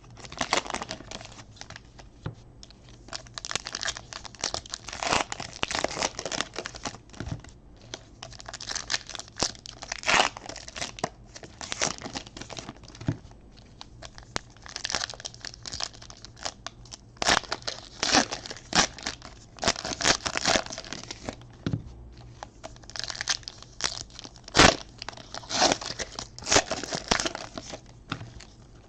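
Trading card pack wrappers being torn open and crinkled, with irregular crackling rustles that come and go.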